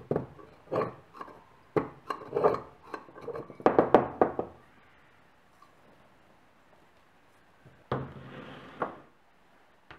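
Steel screwdriver scraping and knocking dried carbide residue out of a carbide lantern's brass canister: a quick series of scrapes and sharp clicks, the loudest about four seconds in. Near the end, a short scrape and a knock as an item is set down on the wooden bench.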